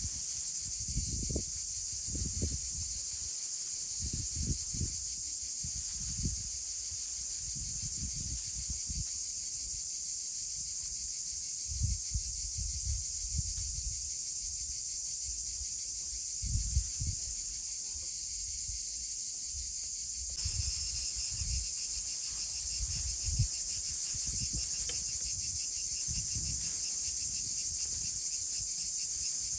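Steady, high-pitched chorus of insects chirring without a break, with short low rumbles now and then underneath.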